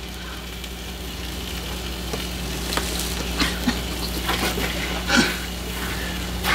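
Food sizzling on an electric space heater: a steady hiss with scattered small pops and clicks over a low electrical hum.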